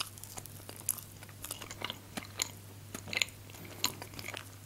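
A bite into a fruit-topped pastry tartlet at the start, then chewing with scattered soft crunches and short mouth clicks.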